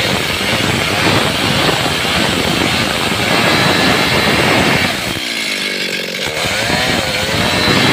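Stihl two-stroke chainsaw running at high revs with its chain cutting into a sawn wooden plank. About five seconds in, the engine note dips and swings in pitch for a moment, then picks back up.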